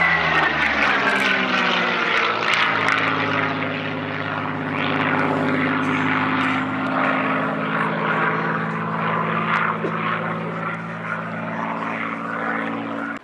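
Hispano HA-1112 Buchón fighter's Rolls-Royce Merlin V12 engine and propeller running in flight. The engine note falls in pitch over the first couple of seconds as it passes, then holds a steady drone.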